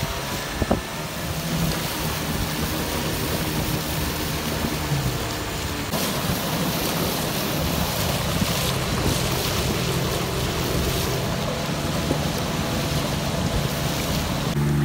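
Outboard motors of wooden river longboats running steadily under way, with water rushing and splashing along the hulls and wind on the microphone.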